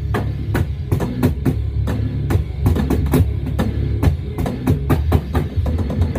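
A drum kit played along to a rock song: regular bass drum and snare hits several times a second over bass and guitar. The kit sounds weak in the mix.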